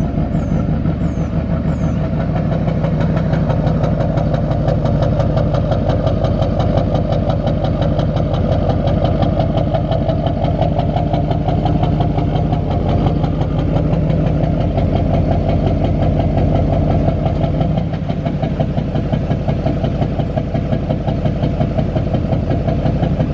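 Duramax diesel truck engine running steadily, with a rapid, even knocking pulse.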